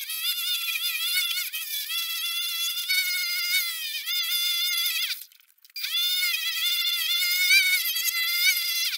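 Homemade wood lathe, driven by a washing machine's commutator motor, turning a wooden spindle as a hand chisel cuts into it: a high, wavering whine. It cuts out for about half a second a little after five seconds in, then resumes.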